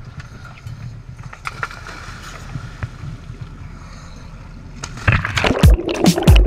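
Steady low rumble of a dive boat with faint clicks of gear, then about five seconds in a loud, churning splash as a scuba diver jumps in and goes under among rushing bubbles.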